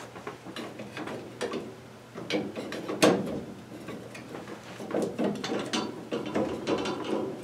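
Light metallic clicks and rattles of a 1963 Chevrolet C10's turn signal switch and steering column parts being handled and worked loose by hand, with one sharper click about three seconds in.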